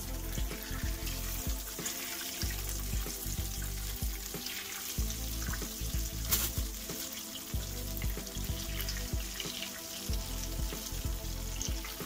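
Oil frying cheese-filled dough balls in a frying pan, a continuous sizzle with many small crackles as fresh balls are laid into the hot oil.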